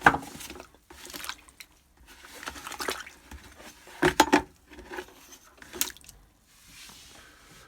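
Seat belt webbing being pushed down into a bucket of water, sloshing and dripping, with a cluster of louder splashes about four seconds in.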